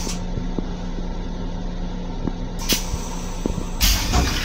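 Steady hum and rumble of a Long Island Rail Road M7 electric railcar, heard from its restroom, with a few faint knocks. A short hiss comes about two and a half seconds in, and a louder hiss with a low thump near the end.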